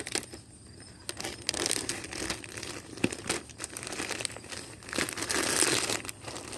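Packaging crinkling and tearing as a wrapped item is opened by hand, with scattered clicks, busiest about two seconds in and again near the end.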